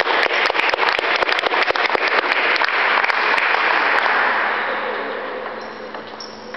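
Spectators applauding a finished table tennis rally: dense hand-clapping that thins out and fades away over the last couple of seconds.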